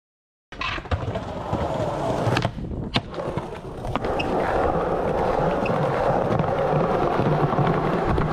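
Skateboard wheels rolling over stone paving slabs, cutting in about half a second in. A few sharp knocks in the first three seconds, then a steady rolling noise.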